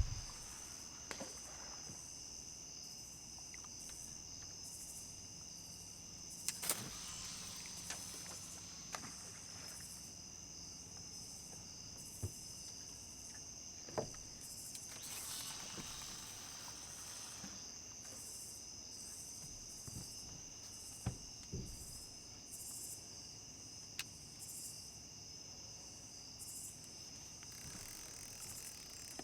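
Night insect chorus: a steady high-pitched trill with a regular pulsing chirp above it, with a few short knocks and clicks scattered through it.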